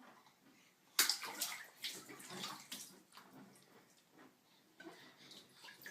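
Water splashing in irregular bursts, starting about a second in.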